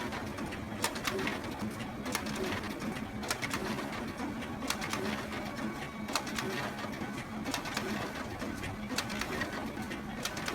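Photocopier running: a steady motor hum with sharp clicks recurring about every second to second and a half.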